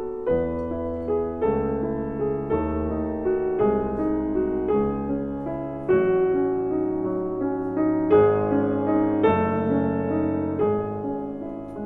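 Background piano music: slow, gentle chords struck roughly once a second, with a louder chord about eight seconds in.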